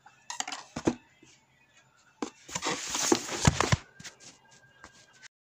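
Handling noise from the recording phone being moved: knocks, clicks and rubbing on the microphone in two bunches, the second longer and louder, then a few faint clicks.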